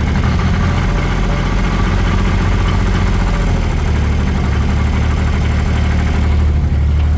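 Bobcat 116 excavator's diesel engine idling steadily, still cold just after a glow-plug cold start.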